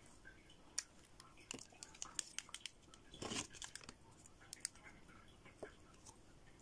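Faint handling clicks and taps of nail-stamping tools, with one short scrape about three seconds in: a scraper swept across the metal stamping plate to clear the excess stamping polish, followed near the end by a silicone stamper pressed onto the plate.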